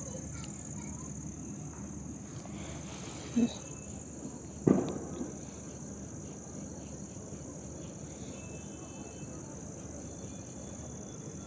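Steady high-pitched chirring of night insects, with two short louder sounds, the second a sharp knock, near the middle.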